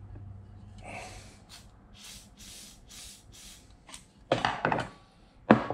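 Aerosol can of penetrating oil sprayed in about five short hisses onto a seized, torch-heated stainless motor-mount bolt, cooling and soaking it between heat cycles. Two sharp knocks follow near the end.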